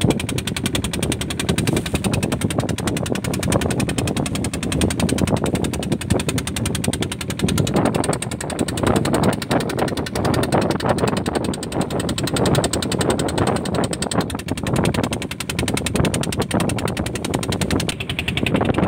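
Engine of a small wooden fishing boat running steadily under way, a fast, even pulsing beat.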